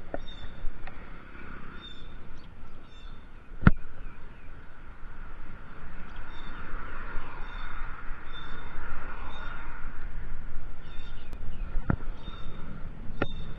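Mountain bike riding on a paved road heard from a handlebar-level camera: steady wind and tyre noise, with a sharp knock about four seconds in and another near the end as the bike jolts. Short high chirps, likely birds, repeat throughout in the background.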